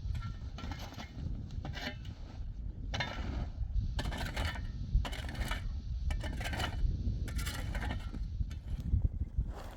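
Repeated short scraping and clinking strokes, roughly one a second, over a steady low rumble.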